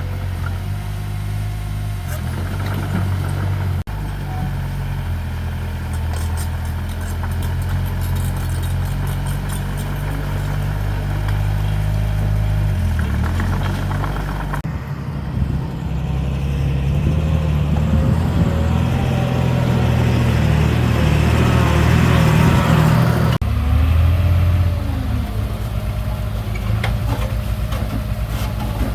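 Heavy earthmoving machinery's diesel engines running, the engine note changing abruptly about 4, 15 and 23 seconds in.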